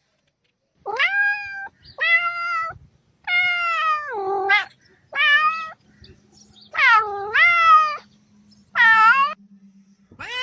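Domestic cat meowing over and over: six separate meows, starting about a second in, each lasting from half a second to about a second and a half.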